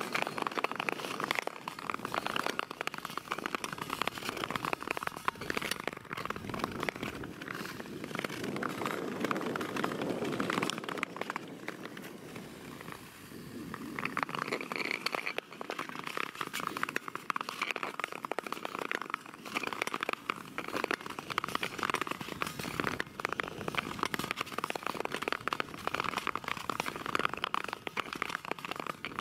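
Ice skate blades scraping and gliding over natural ice, a rough, crackling hiss that eases off briefly about halfway through.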